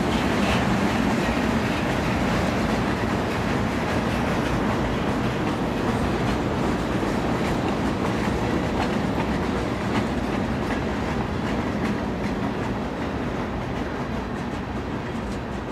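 Union Pacific freight train cars (boxcars and covered hoppers) rolling past at close range: a steady noise of wheels running on the rails that eases off slightly near the end.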